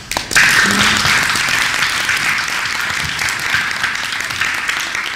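Audience applauding, starting abruptly just after the start and beginning to die down near the end.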